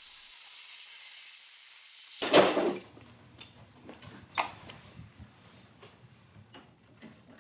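Portable band saw in a stand cutting steel: a steady high hiss for about two seconds, ending in a brief louder burst of noise. After that, only faint scattered clicks.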